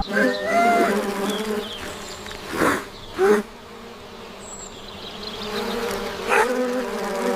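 Steady buzzing drone, wavering slightly, with brief louder swells about two and a half, three and six seconds in.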